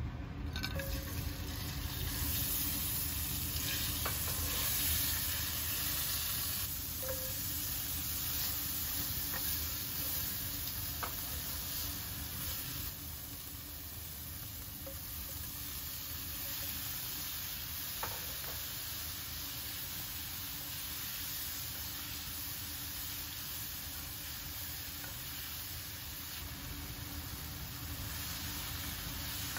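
Shrimp, okra and cherry tomatoes sizzling in oil in a nonstick frying pan as they are stirred with a silicone spatula. The steady hiss of frying is broken by a few light clicks and knocks of the spatula against the pan.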